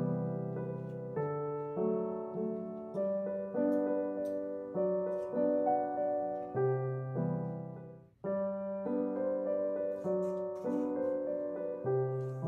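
Background solo piano music: a gentle, slow melody of sustained notes, which fades almost away about eight seconds in and then starts again suddenly.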